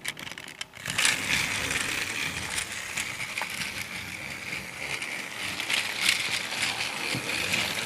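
Trackmaster Crash and Repair Bash battery-powered toy engine running on plastic track: its small electric motor and gears whir steadily, starting about a second in after a few clicks.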